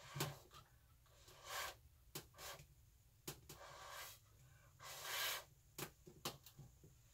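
Several short puffs of breath close to the microphone, about half a second each, with a few light clicks and taps in between.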